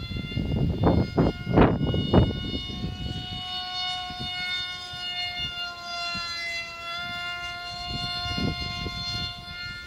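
Propeller-driven electric motor of an RC foam-board J-20 model jet running with a steady high whine, its pitch shifting slightly as the throttle changes. Wind buffets the microphone in the first two seconds and again near the end. The motor is very loud but gives little thrust, which the owner puts down to an inefficient propeller and motor pairing.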